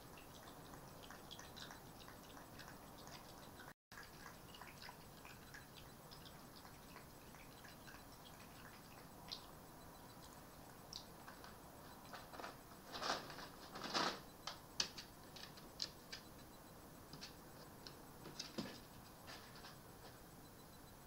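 Red fox eating from a bowl on a plastic table: faint, irregular clicks and crunches. A cluster of louder clicks and knocks comes in the second half.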